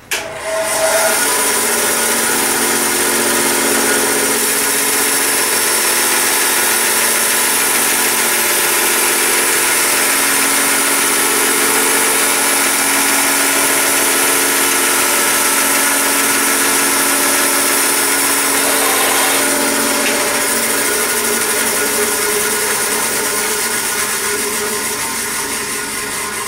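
Craftsman bandsaw switched on and running, the blade cutting through a white plastic block. About two-thirds of the way through the sound changes, and it eases off slowly toward the end.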